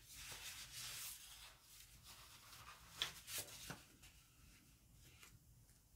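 Faint rubbing of a glue stick across paper, then the rustle of a sheet of patterned paper being lifted and laid down, with a small click about three seconds in.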